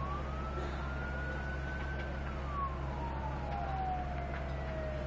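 Emergency siren wailing, its single tone rising slowly to a peak about two seconds in and then falling slowly, over a steady low hum.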